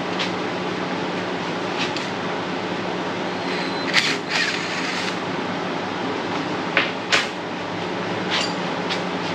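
A few short metallic clicks and knocks from tools on the steering rack's mounting bolts, the loudest about four seconds in and two close together about seven seconds in, over a steady mechanical hum.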